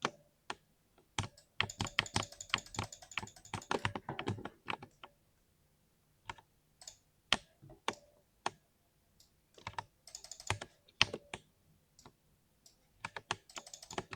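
Typing on a 60% mechanical keyboard: separate key clacks, with fast runs of keystrokes early on, again about ten seconds in and near the end, broken by short pauses.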